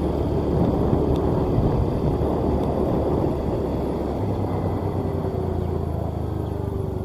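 Engine of a Maxxi J Automatic combine harvester running steadily as the machine travels, its low note shifting about four seconds in.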